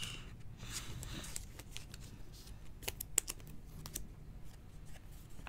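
Trading cards and a thin plastic card sleeve being handled: a soft rustle of the card going into the sleeve, then a quick run of sharp little clicks and taps of card stock and plastic about three seconds in.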